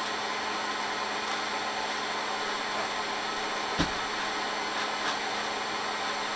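Quadcopter hovering, its propellers and motors giving a steady whirring hiss with a constant hum. A single light knock about four seconds in.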